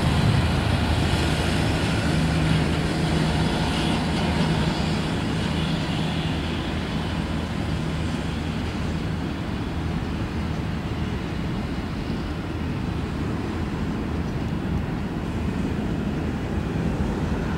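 Boeing 737-800 freighter's CFM56-7B jet engines at takeoff thrust as it climbs away: a steady jet rumble with a low hum that slowly fades.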